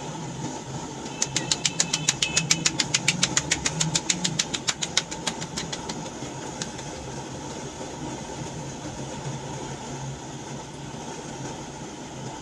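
Roti dough being patted flat between the palms: a fast, even run of slaps, about seven or eight a second, from about a second in to about five seconds in, with bangles clinking along. A steady low hum runs underneath throughout.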